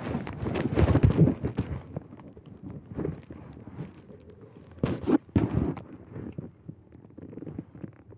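Rustling and irregular thumps of a phone being handled or carried with its microphone covered. The thumps are densest in the first two seconds, with a few sharper knocks about three and five seconds in.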